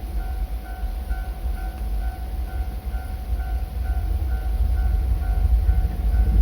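Japanese level-crossing warning bell ringing steadily at about two strokes a second, with the low rumble of an approaching train growing louder toward the end.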